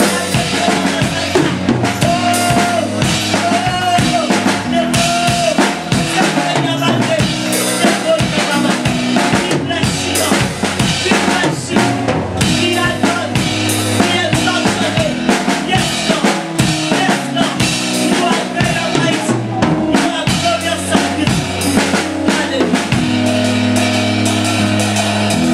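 Church praise-and-worship band music with a full drum kit, bass and keyboard playing a steady beat.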